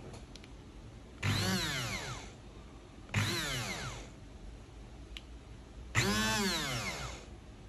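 Braun hand blender's electric motor run in three short bursts, each spinning up with a rising whine and then winding down, as the faulty blender is tried.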